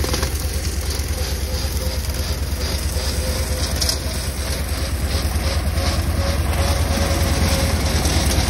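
Vladimirets T-25 tractor's two-cylinder air-cooled diesel engine running steadily, with a fast, even low beat.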